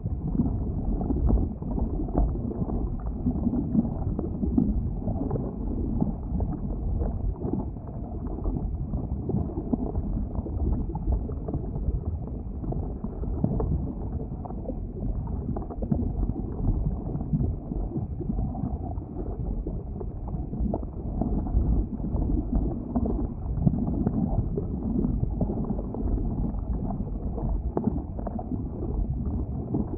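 Boiling lava at an erupting volcanic vent: a continuous low rumble with a dense, uneven texture, the sound muffled with nothing in the high end.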